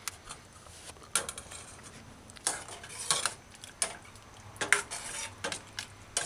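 A large metal spoon stirring a pot of stew and scraping against the sides and bottom of a stainless steel pot. It makes a string of irregular metal-on-metal clinks and scrapes.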